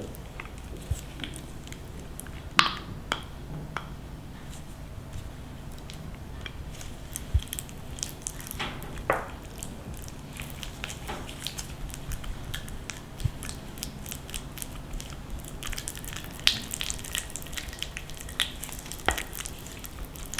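Kitchen food-preparation sounds: scattered light clicks and taps of utensils with soft squishing, over a low steady hum.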